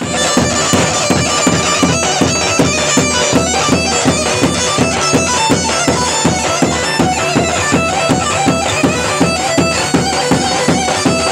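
Kurdish halay dance music: a loud, reedy shawm-style melody, in the manner of a zurna, over a steady drum beat.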